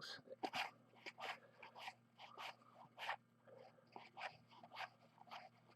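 Faint, soft clicks and swishes, about two a second, of cardboard baseball cards being slid one over another while thumbing through a pack.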